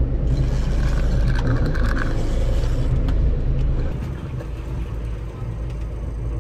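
Steady low rumble of a boat's engine mixed with wind on the microphone; it drops in level about four seconds in.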